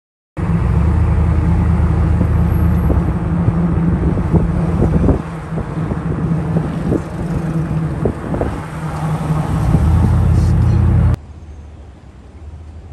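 Motor vehicle running: a loud, steady low hum with noise over it and a few knocks. It cuts off abruptly about eleven seconds in, leaving quieter outdoor background noise.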